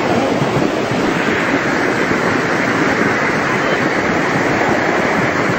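Muddy flash-flood torrent rushing down a street: a loud, steady noise of fast-moving floodwater.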